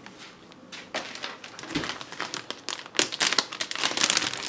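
Clear plastic bag of carrots crinkling as it is handled, in irregular crackles that start sparse and grow denser and louder near the end.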